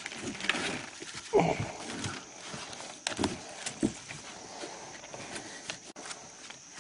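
Irregular hollow knocks and scuffs of a small child clambering about inside a plastic kayak, with a couple of short wordless voice sounds.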